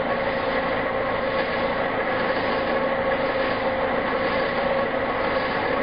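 Hydrogen-oxygen (HHO) gas from an electrolysis cell bubbling steadily and fast through water as it fills an upturned, water-filled collection bottle.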